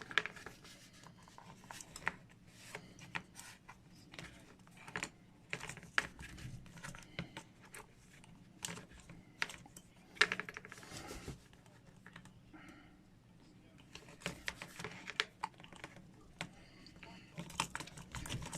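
Irregular small clicks, taps and scrapes of hard plastic action-figure parts being handled and worked, with a quick run of ticks about ten seconds in.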